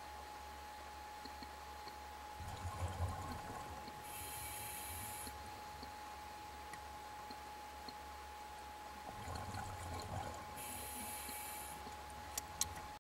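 A scuba diver breathing through a regulator underwater: two breaths about seven seconds apart, each a low bubbling rumble followed by a hiss. A faint steady tone runs underneath, and there are two sharp clicks near the end.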